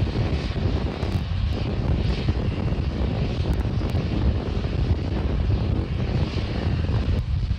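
Rocket engine roar from SpaceX Starship SN8's Raptor engines in powered ascent: a loud, steady, deep rumble. It thins out abruptly near the end.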